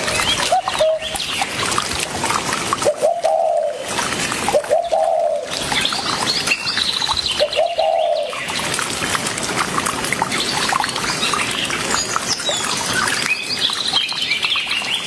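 Birds chirping and calling: three short lower-pitched calls that rise and fall in the first half, then high-pitched chirps in the second half.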